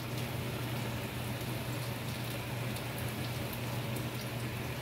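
Cauliflower, broccoli and mushrooms cooking in a pan: a steady sizzling and bubbling with faint light crackles, over a steady low hum.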